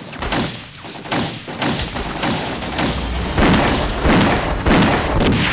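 Gunfire sound effects in a drama battle scene: a rapid, uneven string of rifle and pistol shots with a low rumble beneath, heavier from about three and a half seconds in.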